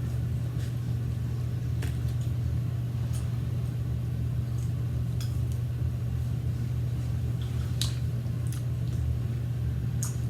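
Steady low hum throughout, with a few faint short clicks and taps scattered over it.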